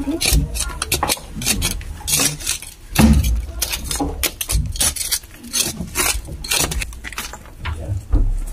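Irregular clinks and knocks of hard objects being handled, the loudest about three seconds in.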